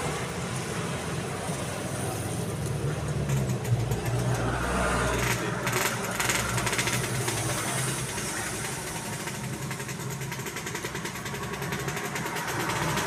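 An engine running steadily with a low hum, a deeper rumble swelling briefly about four seconds in.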